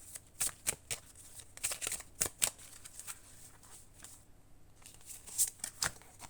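Tarot cards being shuffled and handled: quick, irregular crisp flicks and swishes of the cards. They come thickly for the first few seconds, then thin out to a few single snaps near the end.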